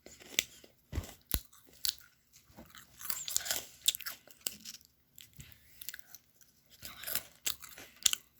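Crisp dalgona-shaped potato snack being bitten and chewed, with irregular sharp crunching crackles. Two dull knocks about a second in.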